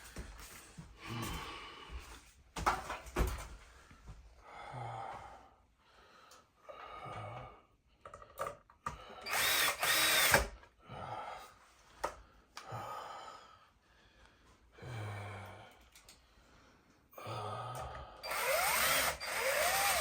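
Power drill driving screws in a series of short runs, its motor whining up and down in pitch. The longest, loudest runs come about halfway through and near the end. A few sharp knocks sound about three seconds in.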